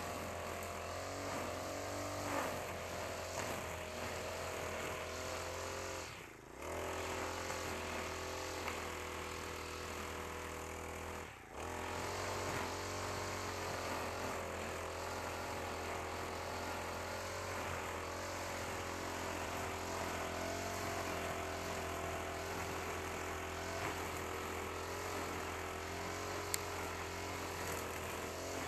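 Honda GX35 four-stroke brush cutter engine running steadily while the cutter mows grass, its pitch wandering a little. The sound drops away briefly twice, about six and eleven seconds in.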